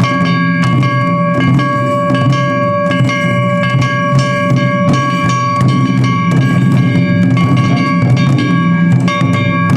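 Japanese festival drum music: taiko drums struck in a steady rhythm under a held high-pitched note.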